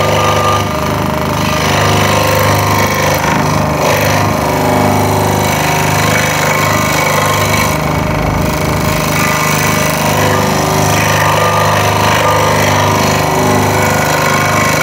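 Scroll saw running steadily, its reciprocating blade cutting through a wooden board as the board is fed and turned along tight curves.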